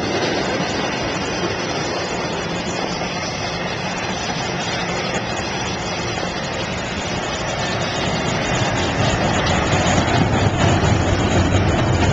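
CSX intermodal freight train passing close by, trailers on flatcars and then double-stack container cars: a steady rumble and rush of steel wheels on rail, growing louder about eight seconds in.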